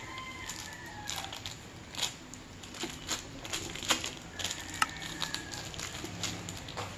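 Small clicks and crinkles as yellow air-dry clay is pulled from its clear plastic container and pressed against a wooden tabletop. A rooster crows faintly at the start and again about five seconds in.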